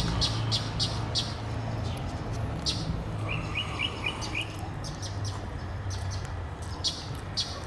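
Small birds chirping with short, high calls scattered throughout, and a quick run of about five chirps a little over three seconds in, over a low steady hum.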